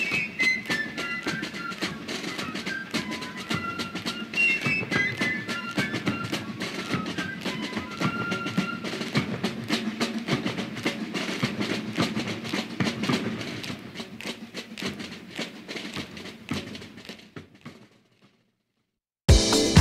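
Background music with a steady percussion beat and a high, stepping melody line, fading out over several seconds to silence; a new, louder track starts just before the end.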